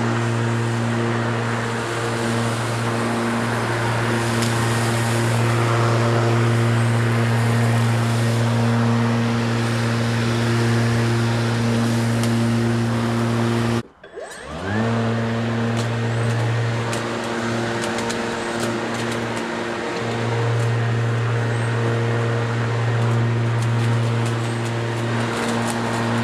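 Spear and Jackson 40 V cordless rotary lawnmower running, its electric motor and blade giving a steady hum. About halfway through the sound cuts out abruptly, then comes back with a rising whine as the motor spins up, and runs steadily again.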